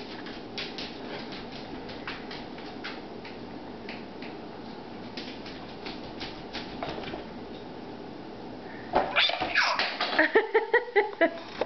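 Light scattered clicks and taps, then about nine seconds in a baby squeals and breaks into a run of quick, loud laughs.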